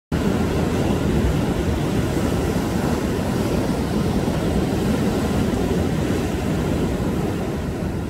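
Sea waves breaking and washing over a rocky shore: a steady, loud rush of surf with a deep low rumble.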